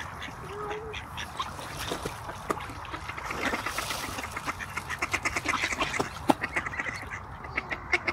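A flock of mallard ducks quacking and chattering, many short calls overlapping in quick succession.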